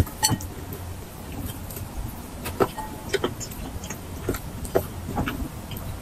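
A person chewing and lip-smacking while eating roast chicken with her fingers, heard close up: irregular sharp smacks and clicks, one or two a second, over a low steady hum.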